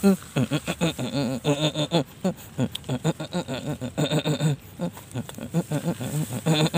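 A man's voice talking or calling in quick, short bursts.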